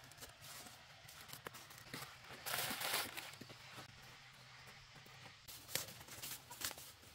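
A hoe knocking and scraping in dry, stony soil: scattered light knocks, with one longer, louder scrape about two and a half seconds in.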